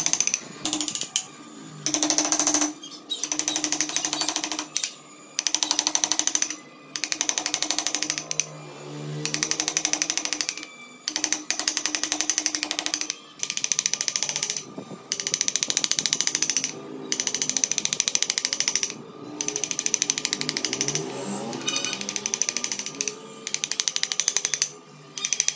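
Wooden mallet tapping a wood-carving chisel in quick, rapid runs of strikes, each run lasting a second or two with short pauses between.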